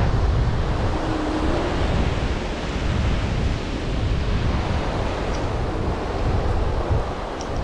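Wind buffeting the camera's microphone in gusts, over the steady wash of surf breaking on the beach.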